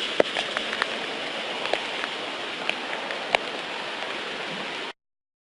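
Rain falling: a steady hiss with scattered sharp drop ticks, starting and cutting off abruptly.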